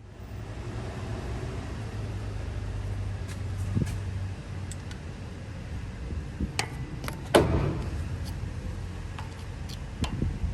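A vehicle's steady low hum that drops away about four and a half seconds in, with scattered sharp clicks, a loud knock about seven seconds in and two more near the end.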